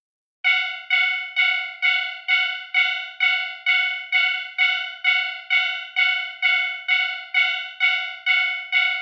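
Japanese railroad crossing alarm bell ringing its repeated 'kan-kan' warning, about two strikes a second, each strike sharp and then fading. It starts about half a second in.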